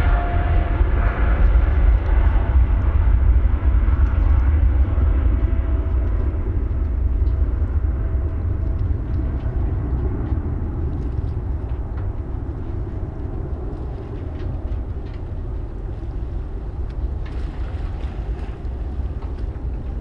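Jet engines of a departing Boeing 777 climbing away after takeoff: a deep rumble with a faint steady whine, slowly fading as the airliner recedes.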